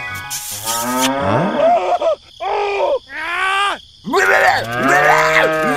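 Calf mooing: several drawn-out calls in a row, each rising and then falling in pitch.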